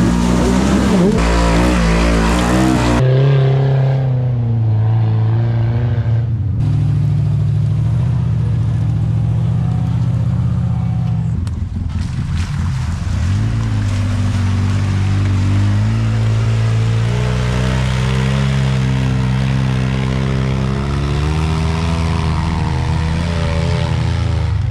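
Off-road side-by-side engines running and revving under load as they climb steep, muddy trails. The engine note shifts abruptly several times, rising and falling with the throttle.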